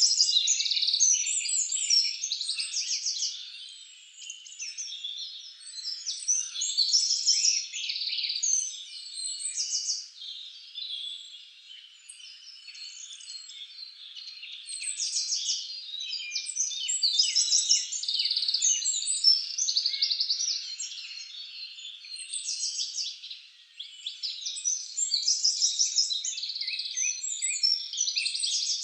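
A dense chorus of many small birds chirping and trilling over one another, with rapid pulsed calls, swelling and fading in waves every few seconds.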